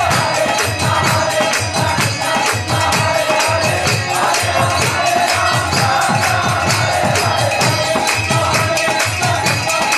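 Devotional kirtan: a lead voice and a group chanting together to a harmonium, over a mridanga drum and jingling hand cymbals keeping a fast, steady beat.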